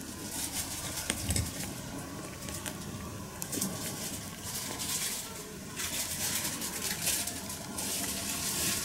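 Intermittent scratchy rustling with a few light knocks close to the microphone, as two cats move about and brush past at close range.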